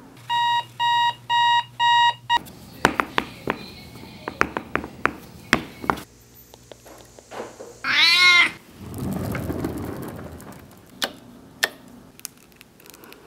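A string of short household sounds: four electronic beeps about half a second apart, then a run of sharp clicks, a loud squeaky warbling sound about eight seconds in followed by a brief rushing noise, and a few key clicks from a BlackBerry phone keyboard near the end.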